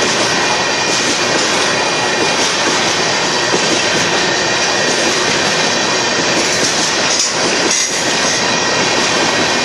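Loaded-train sound of Union Pacific covered hopper cars rolling past at close range: a steady, loud rumble and rattle of steel wheels on the rails.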